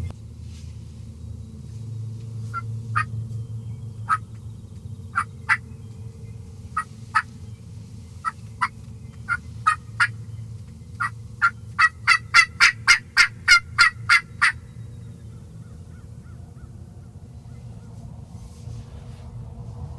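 Wild turkeys calling: scattered single clucks, then a quick run of about ten yelps, roughly four a second, that stops about two-thirds of the way in. A low steady rumble runs underneath.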